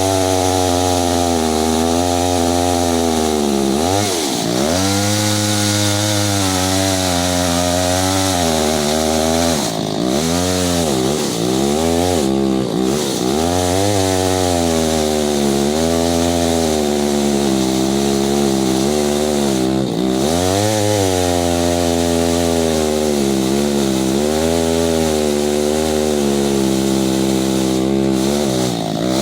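Stihl 025 two-stroke chainsaw running at high revs, its engine note dropping sharply and climbing back again several times.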